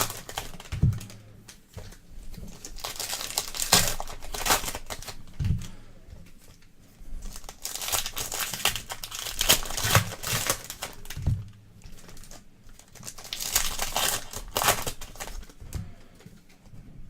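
Plastic trading-card packaging being crinkled and torn open, in irregular rustling bursts with a few soft thumps.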